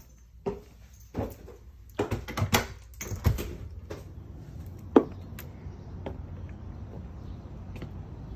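Clicks and knocks as the deadbolt and knob of an exterior door are unlocked and turned, and the door swings open about three seconds in, letting in a steady low outdoor hum. A single sharp knock about five seconds in is the loudest sound.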